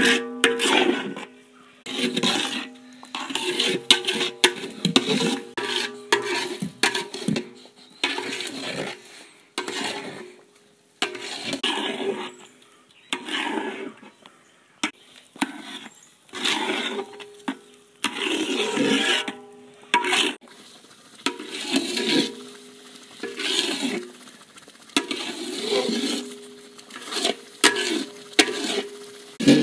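A paddle scraping and stirring thick, cooking dodol paste of jaggery, rice flour and coconut milk around a large aluminium pot. The scraping strokes repeat roughly once a second with short pauses, and each carries a steady ringing tone.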